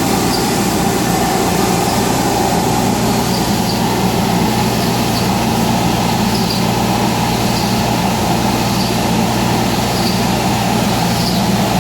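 CNC router running steadily: a constant mechanical drone with a low hum, and faint high ticks recurring about once a second.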